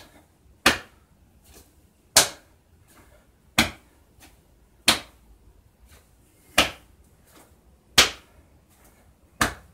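Seven sharp slaps, about one every second and a half, from a limp arm swung loosely from the shoulder and let fall so the hand smacks against the body.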